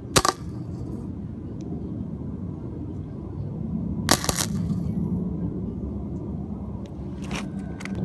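Flux-core arc welder striking three short tack welds with a brief crackle each, one right at the start, one about four seconds in and one near the end, over a steady low rumble. The voltage is turned down, yet the tacks are burning holes through the thin exhaust pipe.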